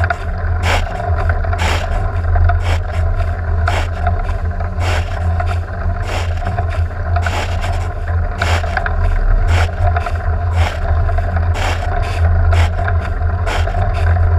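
Car driving on a rain-wet road: a steady low engine and road hum, with sharp short ticks coming irregularly, about one or two a second.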